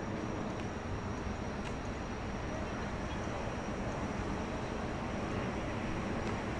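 Steady outdoor city background: a low, even hum like distant traffic, with faint voices of passers-by and a thin, steady high-pitched tone.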